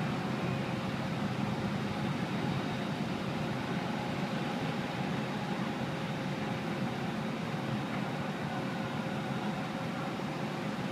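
Steady machine hum and hiss with a couple of faint constant tones, unchanging throughout.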